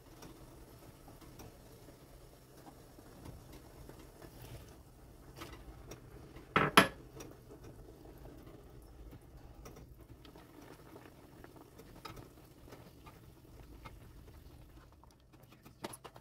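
Silicone spatula stirring a bubbling sauce in a frying pan, with soft scraping and patter over a faint steady hum. About six and a half seconds in comes a sharp clatter of utensil on pan, the loudest sound.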